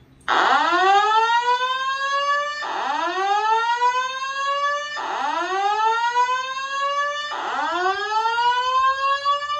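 Simplex 4100ES voice evacuation system sounding its whoop tone through a wall-mounted speaker-strobe: four rising sweeps, each about two and a half seconds, between repeats of the spoken evacuation message. It is the evacuation signal after a manual pull station has been pulled.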